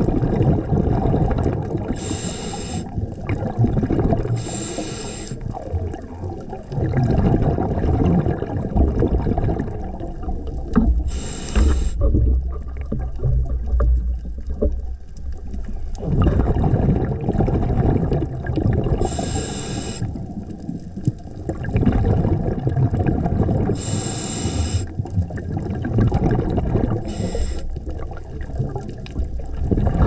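Scuba diver breathing through a regulator underwater: six short hissing inhalations, each followed by a long, low bubbling rush of exhaled air.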